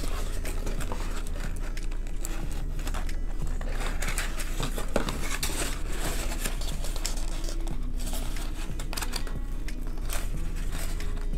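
Corrugated cardboard being handled, bent and slid into the folds of a cardboard form, with a continuous irregular rustling and scraping of cardboard against cardboard and many small clicks.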